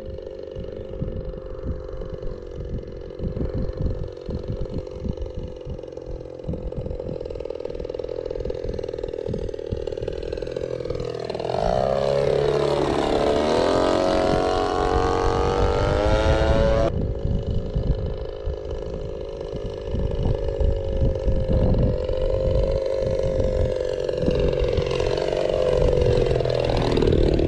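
Radio-controlled model airplane's engine running with a steady note. About halfway through, the plane passes close by, low, and the pitch dips and swells as it goes past. It shifts in pitch again near the end. Wind rumbles on the microphone underneath.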